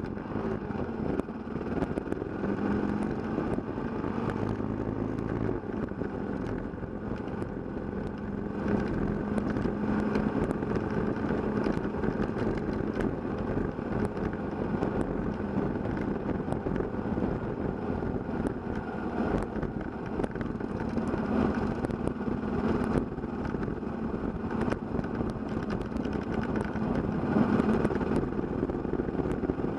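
Kawasaki KLR650's single-cylinder four-stroke engine running steadily under way, with wind and tyre noise from a dirt road.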